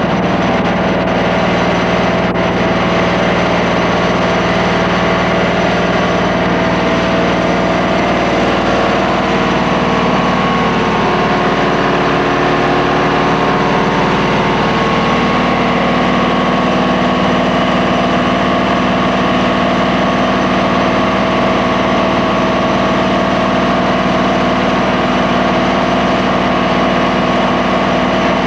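Truck-mounted vacuum excavator (Pacific Tek PV-350) running steadily, drawing water and soil slurry up its suction hose out of a core-drilled pothole. Some of its tones waver about ten seconds in, then it settles again.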